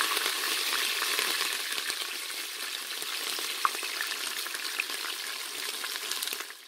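Chopped green chillies frying in hot coconut oil in an electric pressure cooker pot on stir-fry mode: a steady crackling sizzle with a few sharp pops.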